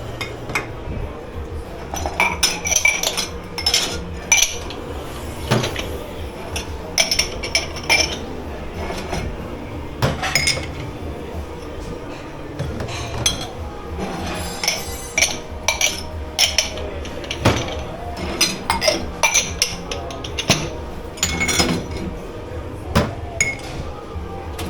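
Dishes, glassware and cutlery clinking and knocking repeatedly as they are handled and stacked at a commercial kitchen dish pit, over a steady low hum.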